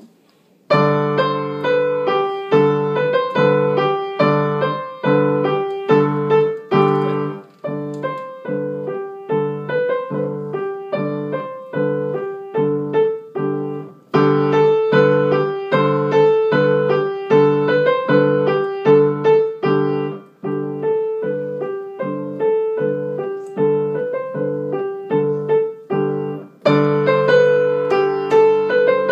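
Grand piano playing a bagpipe-imitation piece: low bass notes re-struck over and over like a drone, under a simple melody. It starts just under a second in, with two brief breaks, one midway and one near the end.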